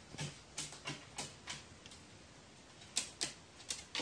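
Sharp, irregular taps and clicks on a hard surface from a pet crow: a handful in the first second and a half, a pause, then more near the end.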